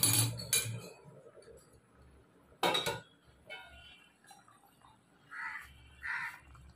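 Sharp metal clink of a steel lid as it is lifted off a pot of boiling chicken curry. Near the end, a couple of crow caws.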